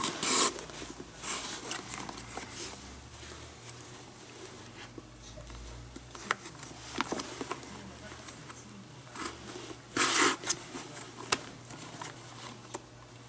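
Leather lace being drawn through the lacing holes of a Rawlings Pro Preferred glove with a lacing needle: a rasping pull right at the start and another about ten seconds in, with light clicks and rustles of the leather being handled in between.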